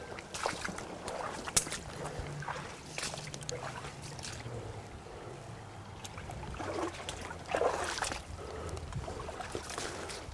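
Footsteps and the rustle of gear moving through dry leaves and brush, with irregular crackles, over the trickle of a small creek.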